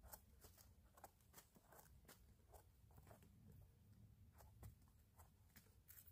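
Near silence, with faint scattered small clicks and rustles.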